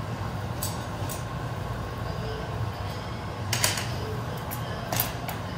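Metal glassblowing tools clicking: a blowpipe rolled on the bench rails and a hand tool working the hot glass give a few sharp clicks, the two loudest in the second half, over the steady low rumble of the studio's equipment.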